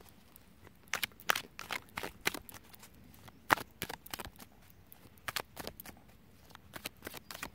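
A deck of oracle cards being shuffled by hand: irregular short flicks and clicks of the cards, the loudest about halfway through.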